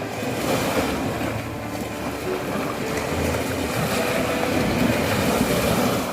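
Sea waves breaking and washing up a beach in a steady, full rush of surf that swells slightly toward the end.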